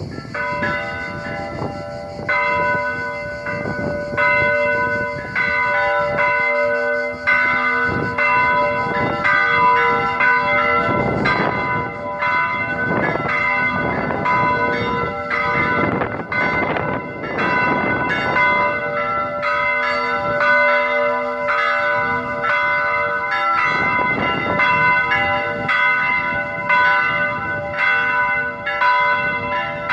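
Greek Orthodox church bells ringing, several bells of different pitch struck over and over in quick succession, their tones ringing on and overlapping. The ringing starts abruptly at the beginning.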